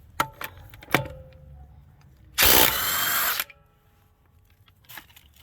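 Ryobi 18V ONE+ HP brushless impact wrench on setting 3 hammering a truck lug nut loose in one loud burst of about a second. A few light clicks come in the first second before it.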